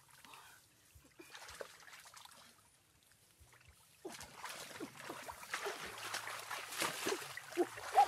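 Water splashing and trickling, starting suddenly about halfway through after a quieter first half.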